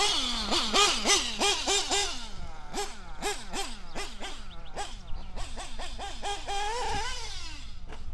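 Novarossi nitro engine of a 1/8-scale RC buggy revving in quick throttle blips, its pitch jumping up and then sliding down as the throttle is released, several times a second early on. Near the end it holds one longer, higher rev.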